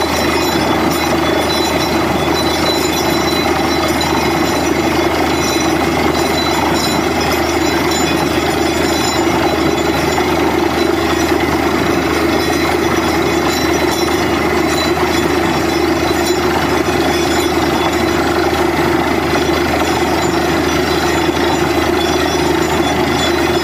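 Truck-mounted borewell drilling rig drilling a water well, its engine and percussive drill hammer running together in one steady, dense clatter.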